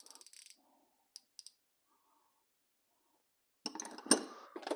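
Gearwrench 90-tooth ratcheting wrench clicking rapidly for about half a second, then two single clicks. After a quiet stretch, tools clink and rattle as they are handled near the end, with one sharp knock.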